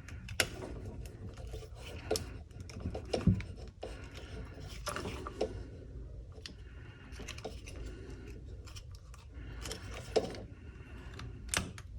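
Scattered clicks, scrapes and rubbing as a battery charger's cable and plugs are handled and plugged in.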